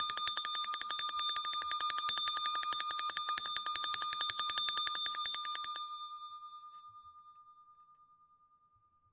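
Handbell shaken rapidly, its clapper striking about eight to ten times a second in a bright metallic ringing. About six seconds in the shaking stops and the ring fades away, one tone lingering longest.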